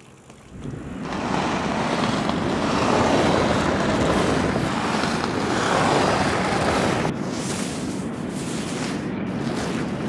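Skis sliding over snow with a rushing hiss, mixed with wind. It builds about a second in, swells twice, and drops a little near seven seconds in.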